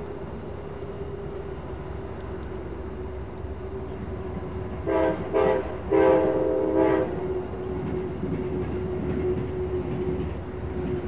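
Distant train's locomotive horn sounding four blasts about five seconds in, two short, one long and a last short one, over a steady low hum and rumble.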